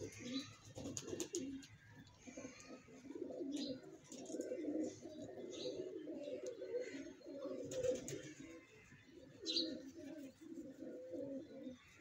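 A flock of domestic pigeons cooing: many low, throaty coos overlapping continuously. A few short high-pitched sounds stand out now and then.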